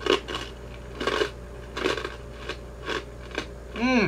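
Mouth-closed chewing of a hard soy-sauce rice cracker (twice-dipped senbei), crunching in irregular bites about every half second. Near the end comes a short hummed 'mm' that wavers in pitch.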